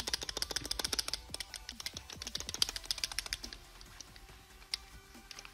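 Plastic ASG Storm Apocalypse gas grenade rattling in its rigid 3D-printed holder as it is shaken by hand. It makes a fast run of light clicks that thins out after about three and a half seconds, from the slight play between grenade and holder. Faint background music underneath.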